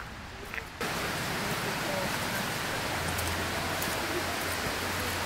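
A steady rushing noise, even from low to high pitches, starts suddenly about a second in and holds.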